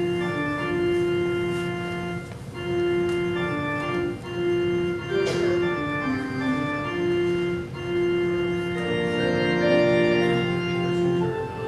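Organ playing slow music in long held chords, the notes changing every second or two.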